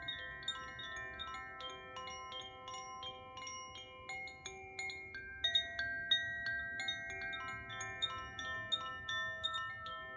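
Koshi chime ringing, its clapper striking the tuned rods about three or four times a second, so that several sweet, sustained notes overlap.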